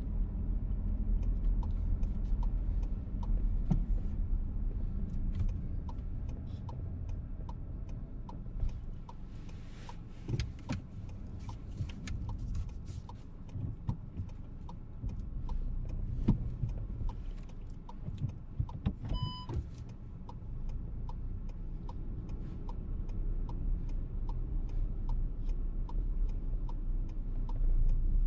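Inside a VW T-Roc, the turn-signal indicator ticks steadily at about three clicks every two seconds over low engine and road rumble while the car is manoeuvred to turn around. A single short beep sounds about two-thirds of the way through.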